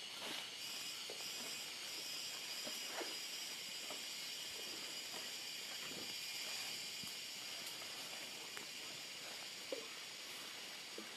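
Asian elephants moving through forest undergrowth, with scattered faint crackles and snaps of leaf litter and twigs under their feet, over a steady high hiss.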